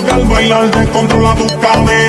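Background music with a steady beat over a pulsing deep bass.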